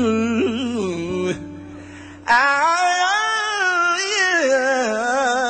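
Live gospel song: a man's voice singing long, wavering notes with acoustic guitar accompaniment. The sound drops away for about a second near the middle, then comes back suddenly louder.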